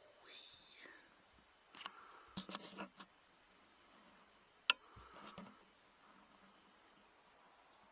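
Crickets chirring faintly in one steady high-pitched trill, with a few soft knocks and one sharp click a little past halfway.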